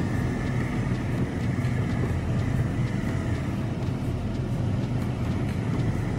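Steady road noise inside a moving car: a low rumble of tyres and engine.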